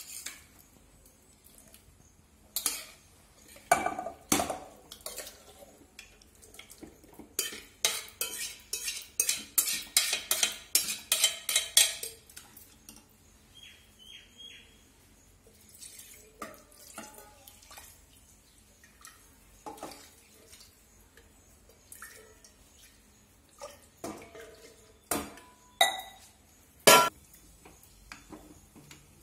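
Metal pots and utensils knocking and clinking, with a quick run of strikes at about four to five a second for several seconds near the middle, like a spoon working in a pot.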